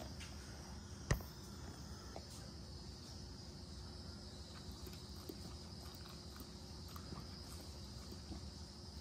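Shetland sheepdog licking and mouthing at a feeding syringe, faint small wet clicks, with one sharp knock about a second in. A steady faint high-pitched whine runs underneath.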